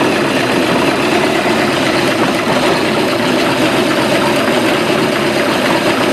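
Carbureted stern-drive boat engine idling steadily while its idle speed is being set to around 650 to 700 rpm.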